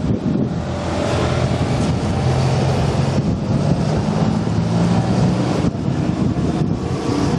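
Porsche sports cars driving past one after another at low speed: a 356 coupe pulling away, then a Boxster passing with a steady engine note for a few seconds in the middle.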